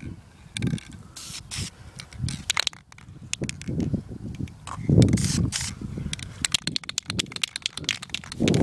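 Two short hisses of an aerosol spray-paint can, about a second in and again about five seconds in, among scattered clicks, rustles and thumps from handling the piece and the leaves.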